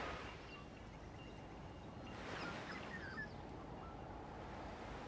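Faint steady background hiss with a few brief, faint bird chirps about two to three seconds in.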